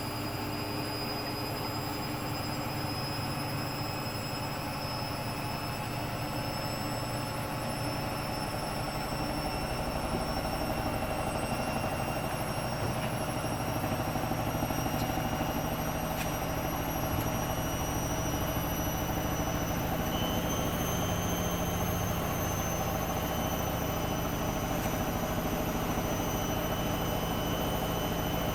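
Hoover Dynamic Next washing machine spinning: its motor whine slowly rises in pitch as the drum speeds up, over a steady hum and rumble. The sound grows slightly louder about halfway through.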